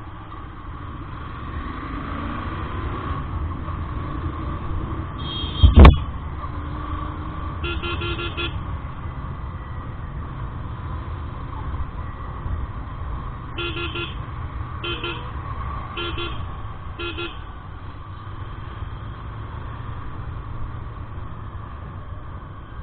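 Steady road-riding rumble with wind on the microphone, broken by a single loud thump about six seconds in. Short vehicle horn honks sound around five and eight seconds in, then four quick toots between about 14 and 17 seconds.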